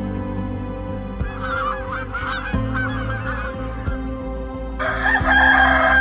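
Egyptian goose calling in a quick run of short, harsh honks. Near the end a rooster starts crowing, the loudest sound, its long held note running on. Soft background music plays underneath.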